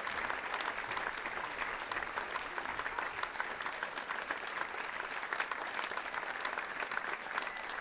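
Theatre audience applauding: steady clapping from many hands.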